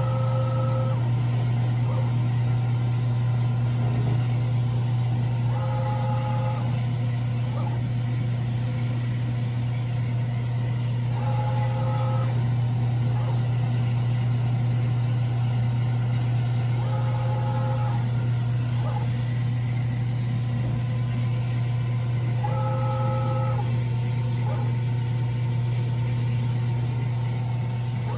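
A steady low machine hum, with a short two-note electronic beep repeating about every six seconds.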